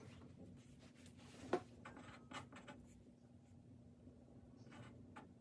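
Faint scratching of writing on paper, with a light tap about a second and a half in.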